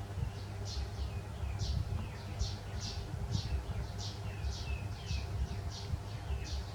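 A steady series of short, high-pitched animal chirps, about two a second, over a low rumble.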